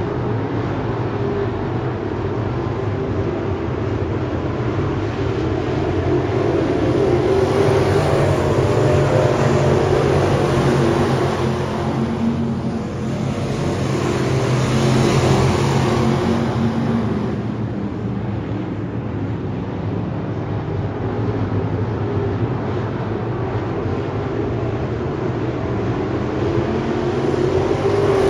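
A field of dirt-track race cars running laps, their engines a steady, continuous drone. It swells louder from about six seconds in, dips briefly, peaks around fifteen seconds and eases back after about seventeen seconds.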